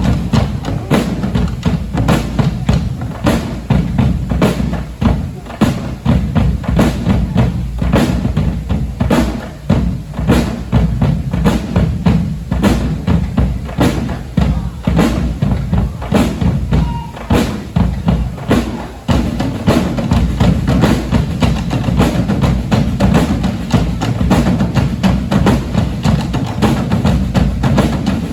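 A drumming band plays a steady, driving rhythm: deep bass drums underneath, with sharp strikes about two or three times a second.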